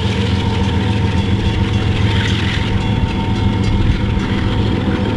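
GE ES44AC diesel-electric locomotive's V12 engine running with a steady low drone as the locomotive approaches.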